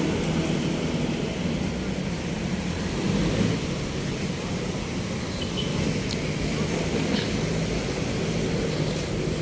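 Steady low engine rumble with background noise, and a few faint clicks in the second half.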